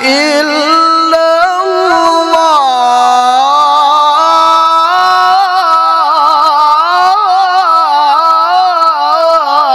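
A man reciting the Qur'an in melodic tilawah style, amplified through a microphone, drawing out the end of the word 'aḥadā' in one long ornamented phrase with the pitch winding up and down and no pause for breath.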